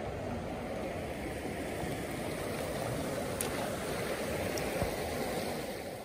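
Soča river water rushing steadily over stones in the shallows, fading near the end.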